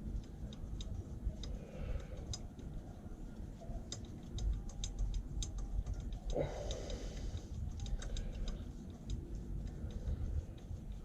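Light metallic clicks and ticks, scattered and uneven, thickest around the middle, from a bolt being threaded in by hand and tools handled on an engine under rebuild.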